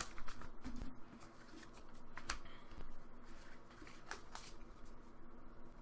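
Pokémon trading cards being handled and shuffled, with a few short clicks as cards slide and tap against each other.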